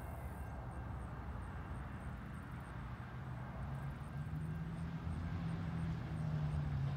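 Low rumble of an approaching Norfolk Southern diesel locomotive's engine, a steady drone that grows louder from about four seconds in, between blasts of its horn.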